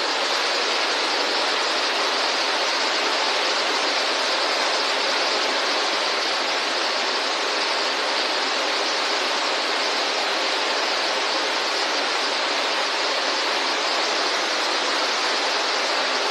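Floodwater gushing in through a doorway and spreading across a house floor: a steady rushing of water.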